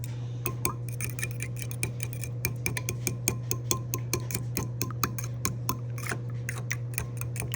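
A fork beating raw eggs and mayonnaise in a bowl: quick, slightly irregular clicks of the fork against the bowl, several a second, over a steady low hum.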